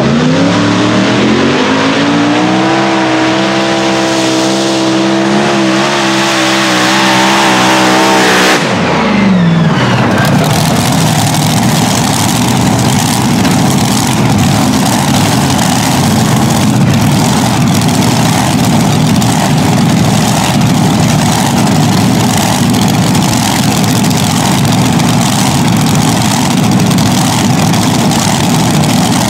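Four NoHemi competition pulling tractor's engine running hard through a pull. It revs up over the first few seconds and holds at high revs with a slight waver. About nine seconds in the pitch drops sharply, then it carries on as a loud, rough, steady roar.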